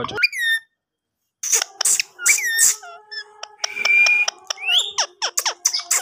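Indian ringneck parakeet making a rapid string of sharp clicks and short chirping whistles, with one held whistle near the middle. It starts after a brief silence, about a second and a half in.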